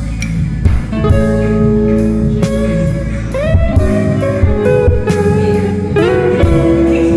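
Blues-style background music: guitar with notes that slide up in pitch, over a steady beat.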